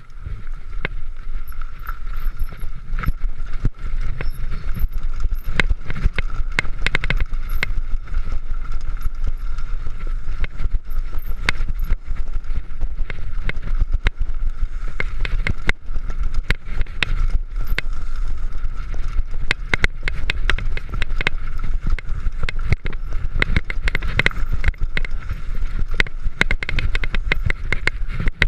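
Mountain bike rattling and clattering over a rough downhill trail, with dense irregular clicks and knocks, a steady thin whine and a low rumble of wind on the microphone.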